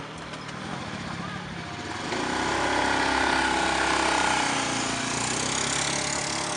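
Small motor scooter engine running as it pulls away carrying two riders, getting louder about two seconds in as it accelerates off.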